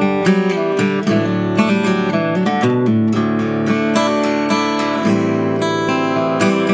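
Strinberg Diamond DM2S OM-body acoustic guitar with Elixir .012 steel strings being played, a continuous run of plucked notes and chords.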